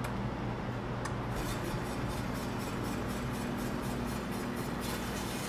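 Electric deli meat slicer running with a steady motor hum while a roast porchetta is sliced on it. A fast, even ticking joins about a second and a half in.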